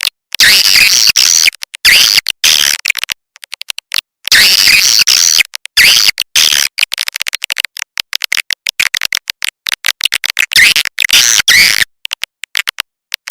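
Recorded swiftlet call sound, made to lure swiftlets into a nesting house: bursts of high-pitched chirping twitters alternating with rapid trains of clicks, with short gaps between.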